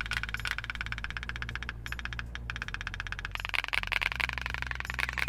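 Candle-fired pop-pop boat steam engine made from a pop can, putt-putting steadily as a fast, even train of small pops: the boiler is running and driving the boat along.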